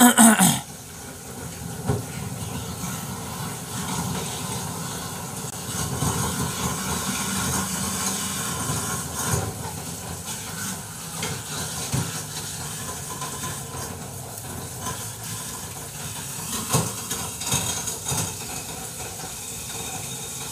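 Tap water running into a sink while dishes are washed: a steady hiss of water with scattered clinks and knocks of crockery.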